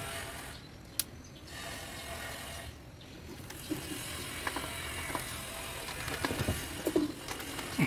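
Scattered small clicks and knocks of hand tools and parts being handled during repair work on an audio component, over a steady hiss. One sharp click comes about a second in, and the knocks gather in the second half.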